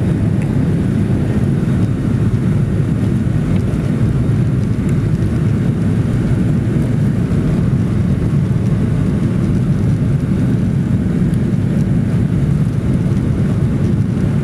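Steady low rumble of a jet airliner's engines at taxi power, heard inside the passenger cabin as the plane rolls slowly along the taxiway.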